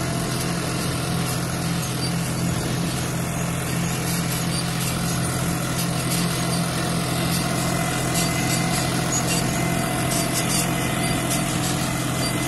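John Deere 5105 tractor's 40 hp three-cylinder diesel engine running steadily under load while pulling a potato planter.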